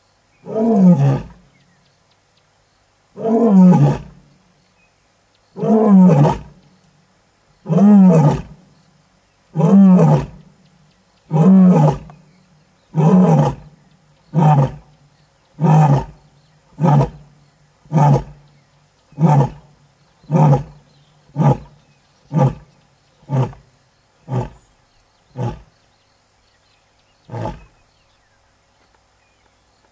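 Lioness roaring a full bout: about seven long, loud roars some two seconds apart, then a run of shorter, quieter grunts coming about once a second, fading out with a last one near the end.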